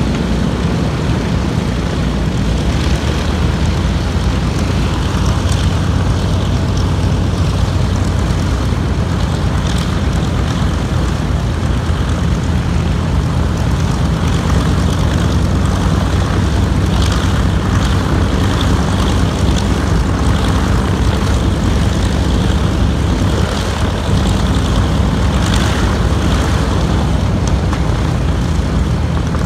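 A North American B-25 Mitchell's twin Wright R-2600 Cyclone radial engines running loud and steady at low taxi power as the bomber rolls past, with the propellers adding to the noise.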